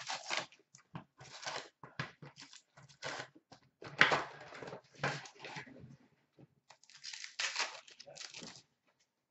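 Paper and cardboard packaging of a hockey card box, with a pack wrapper, being torn open and crinkled by hand. It comes as irregular rips and crackles, with a short pause a little past the middle, and stops shortly before the end.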